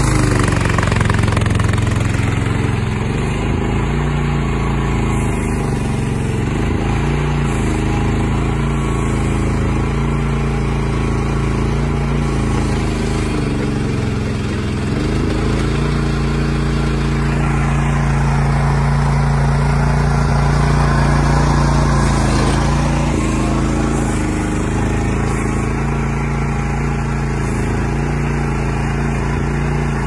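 Mini excavator's engine running steadily while the machine swings and works its boom and bucket hydraulically; the engine note shifts and grows a little louder around the middle as the hydraulics load it.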